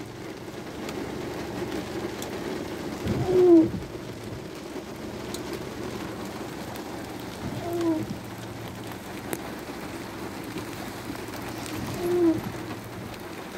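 Car windshield wipers on an intermittent setting: each sweep over the wet glass gives a short moaning squeak of the rubber blade with a low thump, about every four and a half seconds, three times. Under it runs a steady hiss of rain and the moving car.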